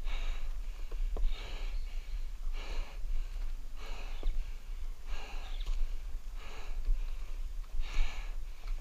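Heavy, rhythmic breathing of a person climbing a ladder, one hard breath about every second and a quarter, out of breath from the exertion, over a low rumble.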